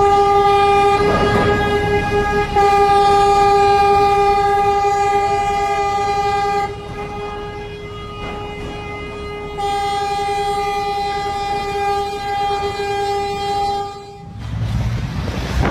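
Ship's horn sounding one long, steady blast, weaker for a few seconds in the middle and then cutting off suddenly near the end, while a container ship strikes a moored vessel.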